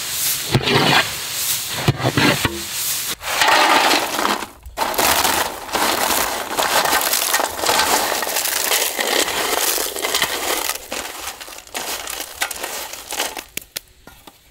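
Crisp fried thattai crackers being crushed by hand on a steel plate: a few separate crunches at first, then about ten seconds of dense crackling crunching that dies away near the end.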